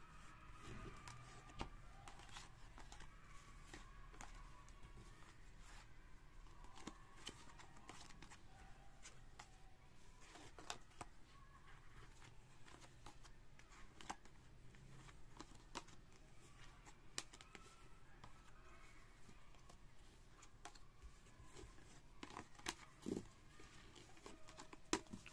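Faint handling of Tarot de Marseille cards: scattered soft clicks and rustles as the cards are shuffled and laid out.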